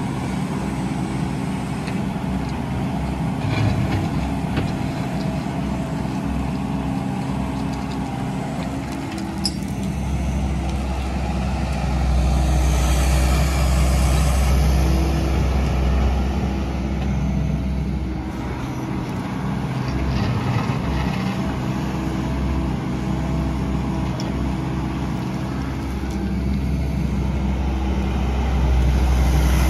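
Takeuchi TB257FR compact excavator's diesel engine running steadily as it works its hydraulics. The engine gets louder and heavier about a third of the way in and again near the end, with a few light knocks.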